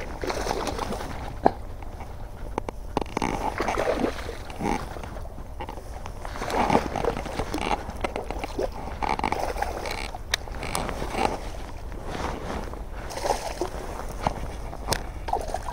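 Rustling and handling noise: the fabric of a rain jacket and bankside grass rubbing close to a body-worn microphone, with scattered sharp clicks over a steady low wind rumble.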